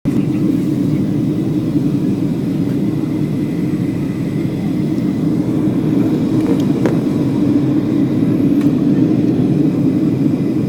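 Steady low roar of an airplane in flight, heard from inside the cabin.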